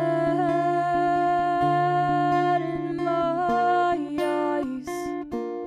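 A woman singing live to her own acoustic guitar: she holds one long, slightly wavering note for about four seconds, then moves through shorter notes, over steadily repeated picked guitar notes.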